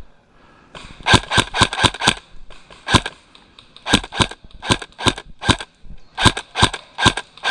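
Airsoft rifle firing single shots: about fifteen sharp cracks in quick, irregular clusters.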